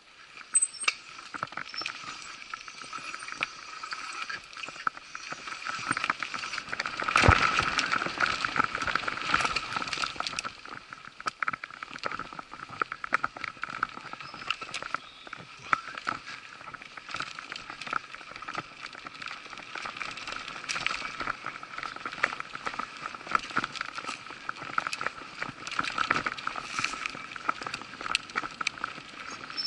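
Mountain bike ridden along a rough forest trail, rattling and clicking continuously as it runs over the ground, with a louder jolt about seven seconds in. A steady high hum runs underneath.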